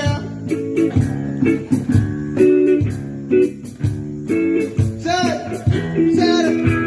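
Guitar music with plucked and strummed notes, and a singing voice joining in over the last couple of seconds.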